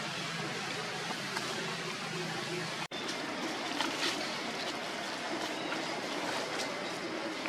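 Steady outdoor background noise, an even hiss with a faint low hum, that drops out for an instant about three seconds in, then runs on with a few faint ticks.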